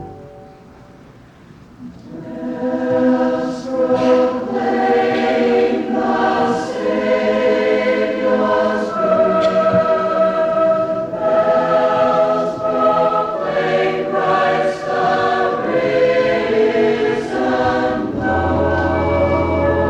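College choir singing in parts, the voices coming in about two seconds in after a held chord cuts off and its echo dies away. Near the end a steady held chord with a deep bass note comes in under the voices.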